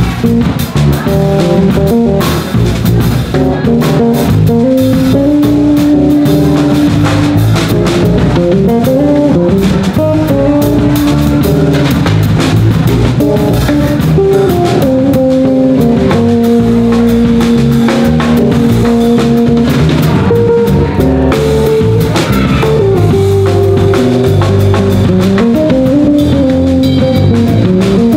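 Live jazz played by two electric bass guitars and a drum kit: one bass carries a melodic line in its upper register, with steps and several long held notes, over the other bass and a steady drum groove.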